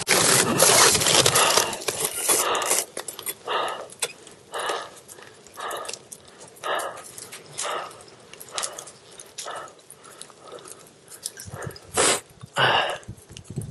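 A person breathing hard, with breathy puffs coming about once a second and two louder breaths near the end.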